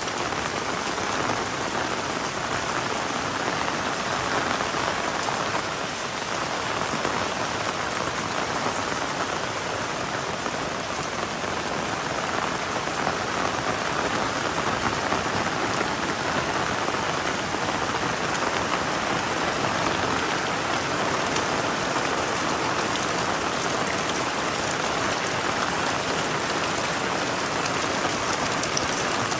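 Heavy tropical rain pouring steadily onto surfaces, a dense even hiss that swells slightly now and then.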